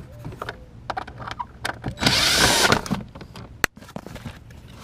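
Clicks and rattles of a car's plastic heater blower motor being worked loose and pulled down from under the dashboard. About two seconds in comes a loud, harsh burst of under a second, and a sharp click follows a second later.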